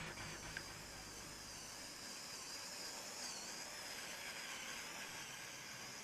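Faint high whine of small electric motors, wavering and dipping in pitch about three seconds in, over a steady hiss.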